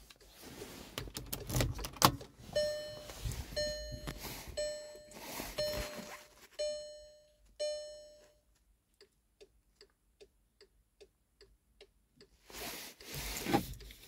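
A Volkswagen Tiguan's warning chime dings six times, about once a second, each ding fading quickly. A faint quick ticking follows, about three ticks a second, with rustling handling noise near the start and near the end.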